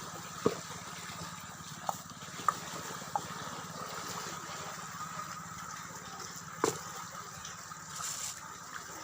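Steady wash of water with a few sharp knocks and clicks; the loudest come about half a second in, about two and a half seconds in, and near seven seconds in.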